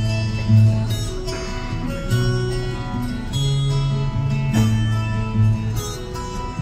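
Instrumental music: a slow melody over held low notes that change every second or so.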